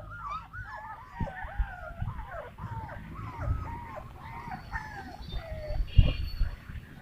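Several Kanni (Chippiparai) hounds whining, a steady run of short, high, overlapping whines that rise and fall. A few dull thumps under them, the loudest about six seconds in.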